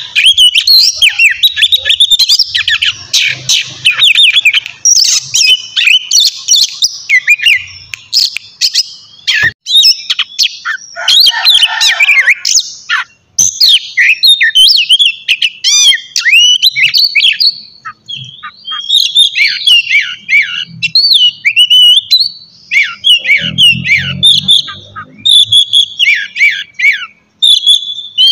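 Oriental magpie-robin (kacer) singing continuously: a fast, varied run of whistled notes, rising and falling slurs and short chattering phrases.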